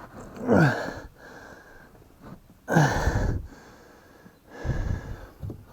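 Lumber framing being forced into place: two loud squeaks that fall in pitch, about two seconds apart, then a low thump near the end.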